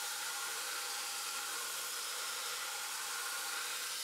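Belt grinder running with a forged steel bar pressed against the abrasive belt: a steady hiss of belt on steel with a faint whine, as the outer layer is ground away.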